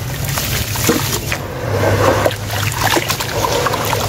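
Wet sand-and-dirt mud dribbling and splashing from cupped hands back into a tub of muddy water, with sloshing as the hands stir through it. There are many small splashes and drips, busiest around two seconds in.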